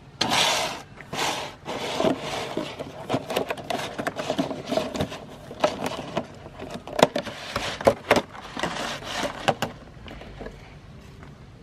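Meat grinder crushing items fed into it: two short grinding bursts, then a quick run of sharp cracks, crunches and scrapes over a faint steady hum, dying down about ten seconds in.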